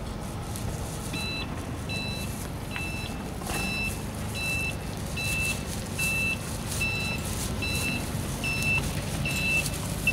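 Vehicle reversing alarm beeping steadily, about one beep every three-quarters of a second, starting about a second in, over a steady low rumble.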